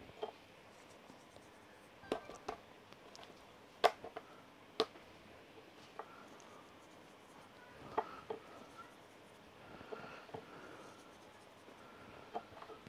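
Quiet, scattered clicks and taps, about a dozen spread irregularly, from hands sprinkling fine salt over two raw beef steaks on a wooden cutting board.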